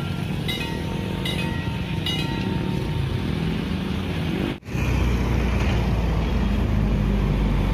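Railway level-crossing warning bell striking about once a second over a steady low engine hum. About halfway through, the sound cuts off sharply and gives way to a steady rumble of road traffic, cars and motorcycles going by.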